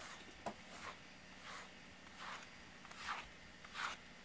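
A grooming brush stroked again and again through a cat's fur: soft, short swishes about every 0.7 seconds, with a small click about half a second in.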